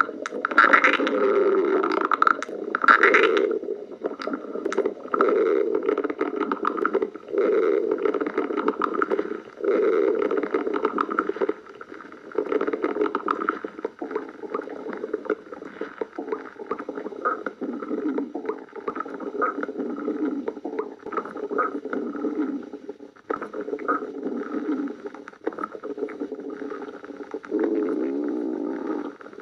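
Human stomach growling: a long run of gurgling rumbles, each a second or two long with short pauses between, some wavering in pitch.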